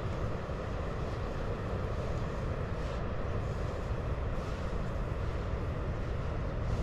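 Steady low rumble of wind on the microphone, with a few faint soft scuffs of footsteps in sand.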